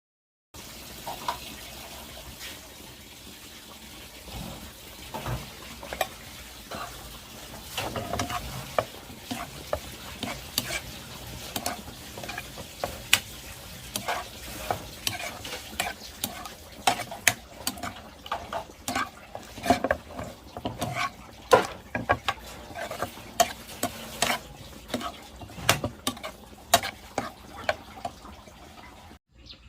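Food frying and sizzling in a pan while a utensil stirs it, clinking and scraping against the pan at irregular intervals.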